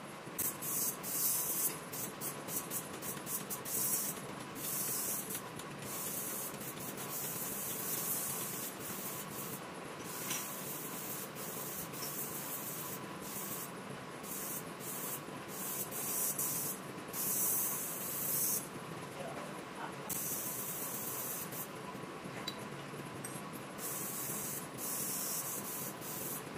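Repeated hissing bursts, some short and some lasting about a second, over a faint steady tone.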